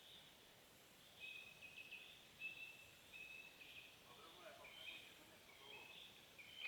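Faint woodland ambience with a distant bird calling: a series of short, high, even notes about every half second over a soft hiss.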